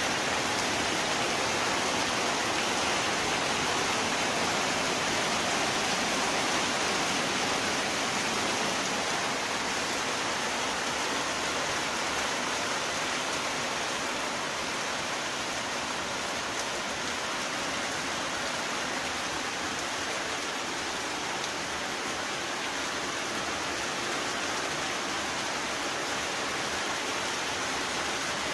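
Steady rain falling, an even hiss that eases very slightly about a third of the way in.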